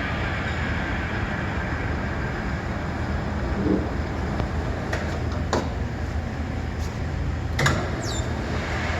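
Steady low machinery hum, with a few sharp clicks and knocks in the second half and a brief falling squeak near the end.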